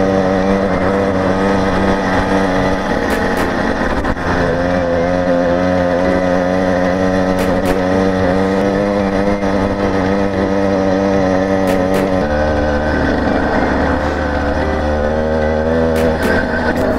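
Two-stroke motorized-bicycle engine running steadily under way, with the rider's speed holding. Its note wavers slightly and drops a little about twelve seconds in.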